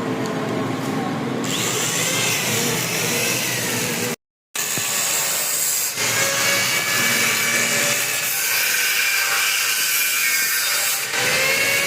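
A power tool running on steel, dense and noisy, with a motor tone whose pitch sags and recovers as it is loaded. The sound cuts out completely for a moment about four seconds in.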